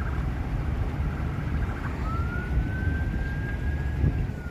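Emergency vehicle siren: a fast warbling tone in the first two seconds, then a wail that rises, holds and starts to fall near the end, over a steady low rumble.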